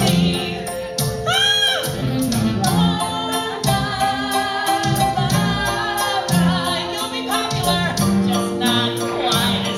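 A woman singing a show tune into a microphone over musical accompaniment with a steady beat.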